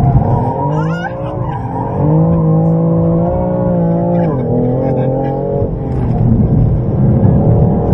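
BMW M3 engine heard from inside the cabin under hard track driving, its revs rising and falling several times through corners and gear changes, with a brief tyre squeal about a second in.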